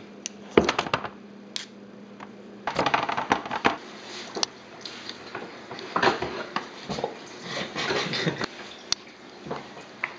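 Irregular clicks, taps and rustling of things being handled, in scattered clusters. A faint steady hum stops about three seconds in.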